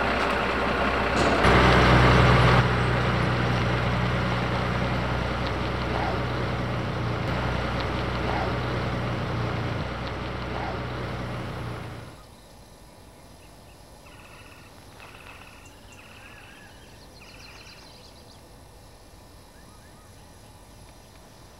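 Open-air tour tram's towing vehicle running as the tram drives past and away, with a louder burst about two seconds in, then slowly fading. About twelve seconds in, it cuts off abruptly to a much quieter outdoor background with a few faint high chirps.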